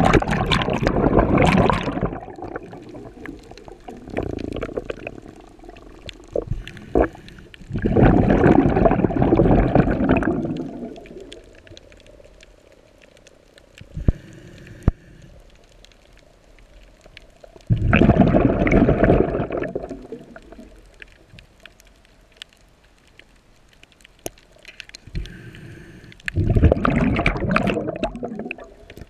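Scuba diver's exhaled breath bubbling out of the regulator, heard underwater: four gurgling bursts of two to three seconds each, about every eight to nine seconds, in a slow breathing rhythm.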